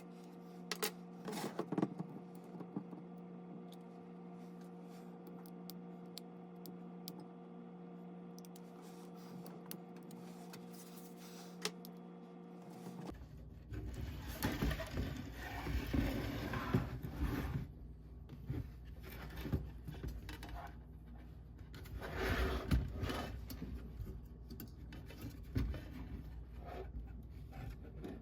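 Faint small clicks, taps and scrapes of hands working on graphics-card parts, over a steady electrical hum that cuts off about thirteen seconds in; after that the handling noise grows busier and louder.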